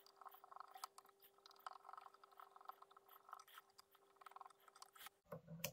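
Fly-tying thread being wound by hand from a bobbin holder around a wire lure shank: faint, repeated soft scratching and rustling, with a faint steady hum that stops about five seconds in.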